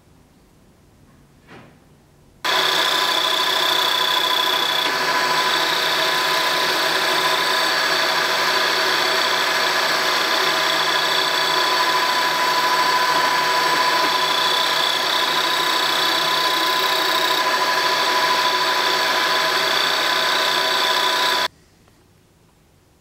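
Vertical milling machine running, its end mill cutting into a brass block held in a vise: a loud, steady machine sound of several held tones over a hiss. It starts suddenly a couple of seconds in and stops suddenly near the end.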